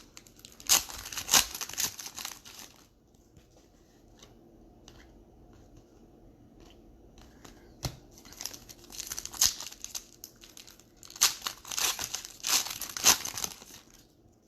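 Plastic wrapper and sleeve crinkling and tearing as baseball card packs are opened and the cards handled. The crinkling comes in bursts, with a quiet stretch in the middle and a single sharp click about eight seconds in.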